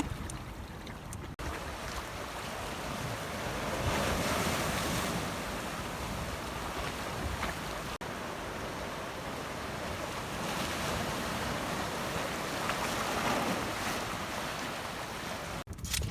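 Sea surf washing in steadily with wind on the microphone, a rushing that swells a couple of times.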